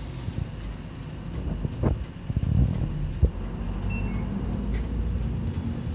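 Hino PDG-KR234J2 city bus running, heard from inside the cabin: a steady low engine rumble, with a couple of sharp knocks and some rattling from the body about two to three seconds in.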